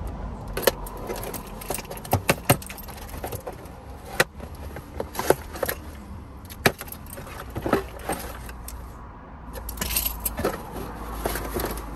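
A delivered package holding a tub of protein powder being opened by hand: irregular clicks, knocks and rattles of packaging being handled, with a longer stretch of rustling near the end.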